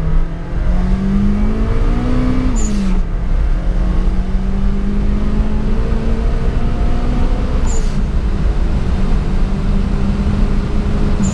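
VW Polo G40 with a swapped-in 16-valve turbocharged engine pulling hard at full throttle, heard from inside the cabin. The engine note climbs with the revs, drops at an upshift about three seconds in and again near eight seconds, then climbs again.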